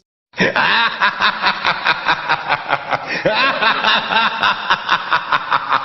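A person laughing hard in rapid, even bursts of about four to five a second. It starts abruptly after a moment of silence.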